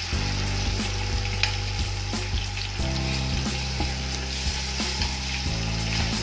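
Green paste of onion, green chilli and mint frying in hot oil, sizzling steadily, while a metal spoon stirs it against the metal pot with repeated short clicks and scrapes.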